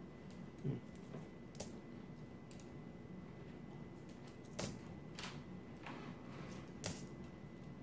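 Nickels being handled one at a time, giving a few sharp metallic clicks as coins tap against each other and the table, the loudest about four and a half and seven seconds in, with a soft thump near the start.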